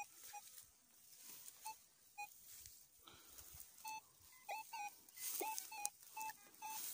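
Metal detector giving short electronic beeps as its search coil is swept over the ground, each beep signalling buried metal. The beeps come one or two at a time at first, then thick and fast in the last few seconds, some sliding down in pitch, with a brief rush of noise about five seconds in.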